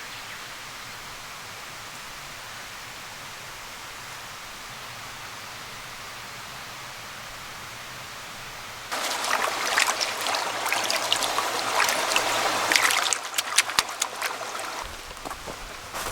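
A steady soft hiss, then about nine seconds in a sudden, much louder crackling and sizzling from campfire cooking, thick with sharp pops.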